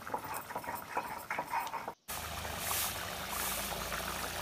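Thick fish curry bubbling in a pan, with many small pops and crackles as it boils down. About halfway there is a brief break, and after it a steadier hiss with a low hum.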